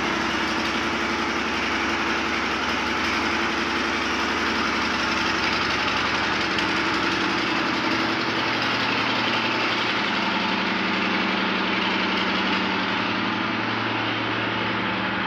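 Steady machine noise like an engine running: an even hiss over a constant low hum that shifts slightly in pitch about ten seconds in.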